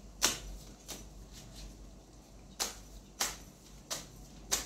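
A deck of tarot cards being shuffled by hand, giving about six sharp card snaps at uneven intervals.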